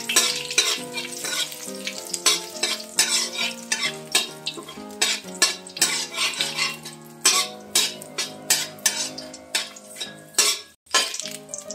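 A spatula stirs and scrapes a metal wok in many quick strokes while whole spices (bay leaves, dried red chillies and panch phoron) sizzle in hot oil. The strokes pause briefly near the end.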